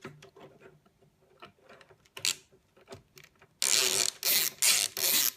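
Faint small clicks of metal tools being handled, then a run of loud rasping scrapes, a few a second, as a screwdriver works against the hard-drive mounting screws and grinds at their heads.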